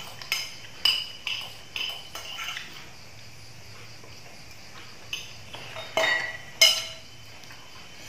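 Spoons clinking against plates as several people eat: a quick run of sharp, ringing clinks, a lull of a couple of seconds, then a few more, the loudest about two-thirds of the way through.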